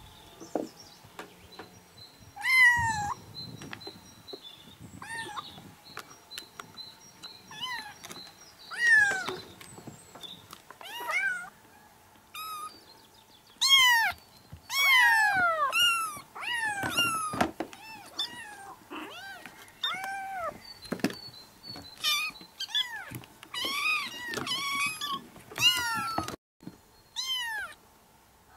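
A litter of young kittens meowing over and over, several at once: short, high mews that mostly fall in pitch. They come sparsely at first and crowd together and overlap in the second half.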